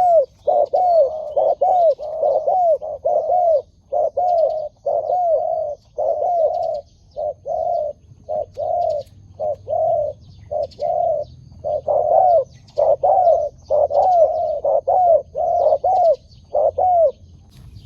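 Spotted dove cooing over and over: a long run of short, arched coos in quick succession with brief pauses, which stops near the end.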